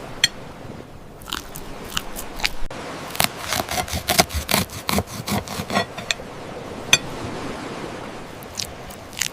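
Crisp food crunching in short, sharp bites and clicks. There are a few scattered ones early, a quick dense run from about three to six seconds in, then a few more.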